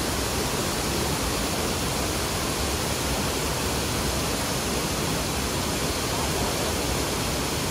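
Shifen Waterfall's wide cascade rushing: a steady, even wash of falling water.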